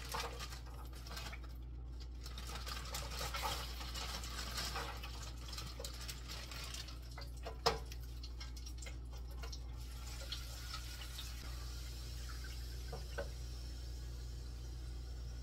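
French fries sizzling and crackling in the hot oil of an electric deep fryer. The crackle is dense at first and thins out after a single sharp clack about eight seconds in, over a low steady hum.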